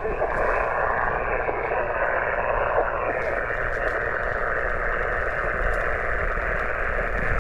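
Steady static hiss from a Yaesu FT-891 HF transceiver's speaker tuned to an empty 20-metre sideband channel: the receiver is open and listening, and no station is answering the CQ call.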